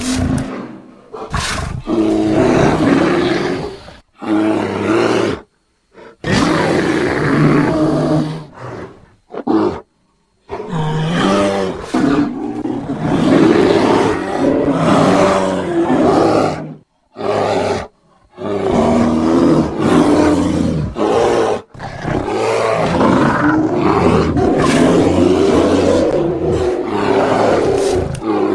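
Bears roaring: a string of deep, loud calls in separate takes, each cut off abruptly with a short silence before the next.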